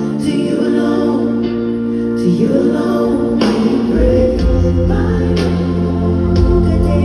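Live band music in an arena, a singer's voice over held chords with a choir-like sound, recorded from the stands; a deep bass comes in about four seconds in.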